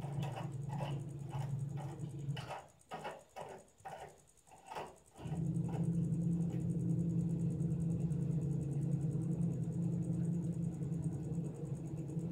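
Washing machine motor humming steadily, cutting out for about three seconds and starting again as the wash action pauses and reverses. Over the first few seconds there is a quick series of light taps or clicks, about three a second.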